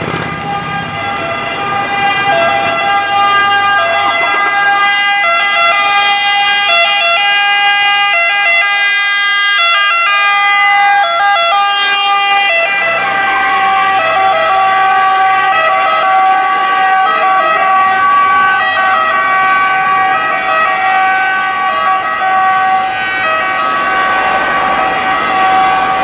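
Italian fire service two-tone siren on an Iveco Daily 4x4 van, alternating steadily between two pitches and loud throughout. Its pitch dips briefly about halfway through as the van passes close, and engine rumble sits underneath it from then on.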